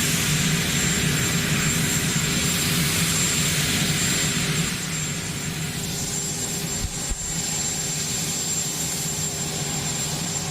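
Jet aircraft engines running steadily, a rushing noise with a low hum and a thin high whine, which grow a little quieter about five seconds in.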